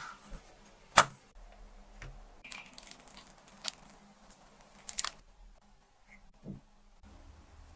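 Quiet ASMR kitchen handling sounds. A spatula clicks sharply once against a frying pan about a second in. A run of faint crinkles and ticks follows as a plastic piping bag is squeezed, and a soft tap comes near the end as fruit is set down.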